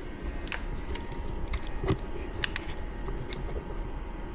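A string of sharp plastic-and-metal clicks from working the safety button and the metal bail bar on an EGO battery lawnmower's handle, before the blade motor starts. A low rumble runs underneath.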